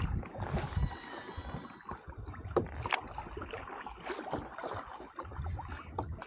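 Baitcasting reel's spool spinning as line pays out: a high whine for about a second and a half, falling slightly in pitch as the spool slows. A couple of sharp clicks follow about three seconds in, over small knocks and water sounds against a plastic kayak hull.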